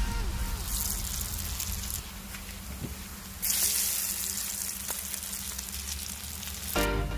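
Chicken vadas (chicken and onion patties) deep-frying in hot coconut oil in a frying pan, a steady sizzle that gets louder about three and a half seconds in.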